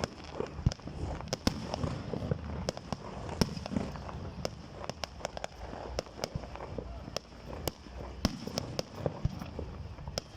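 Fireworks display: a rapid, irregular string of bangs and crackling pops, some much louder than others.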